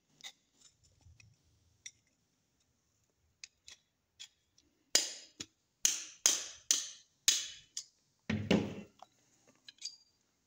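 Steel hand tools clicking and knocking against a rusted, jammed .30 bore pistol slide as the barrel is worked loose. A few faint ticks come first, then about five sharp metallic knocks from about five to seven and a half seconds in, and a heavier clunk a second later.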